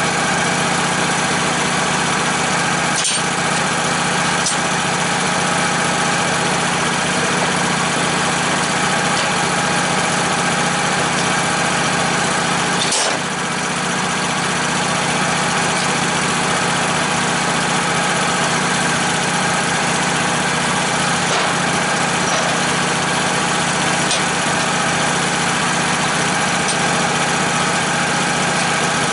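Sawmill's engine running steadily at an even speed, with a sharp knock about three seconds in and another near the middle.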